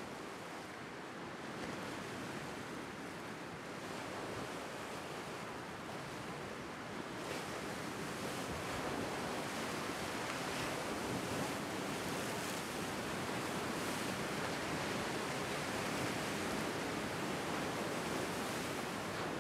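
Lake Superior waves rolling in and breaking over a low rock shoreline, a steady wash of surf that grows louder from about a third of the way in.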